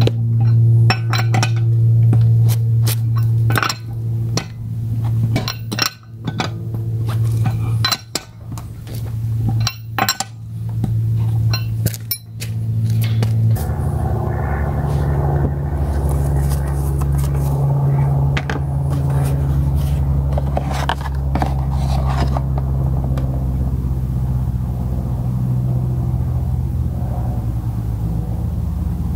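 A lug wrench clinking and clicking against the wheel's lug nuts in quick irregular bursts over steady background music with a low bass line. About halfway the music changes and the clicks become sparse.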